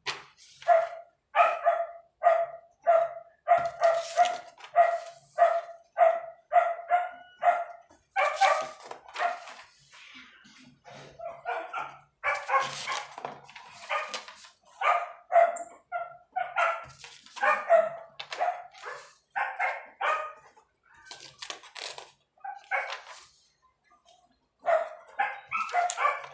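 A dog barking over and over, at first about two barks a second, then in irregular runs, with a short lull before it starts again near the end.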